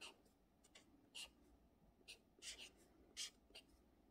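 Felt-tip marker writing Korean letters on notebook paper: about eight short, faint, scratchy strokes with near silence between them.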